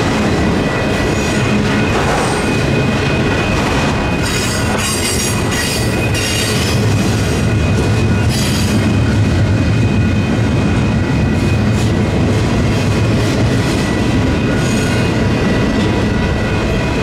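Union Pacific double-stack intermodal freight train passing over a grade crossing: a steady rumble of well cars and wheels on the rails, with high-pitched wheel squeals from about four to seven seconds in and again about eight and a half seconds in. The crossing's electronic bells ring throughout.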